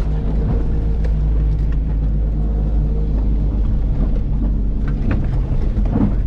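Motor vehicle engine running at a steady speed with a heavy low rumble, with scattered knocks and rattles throughout.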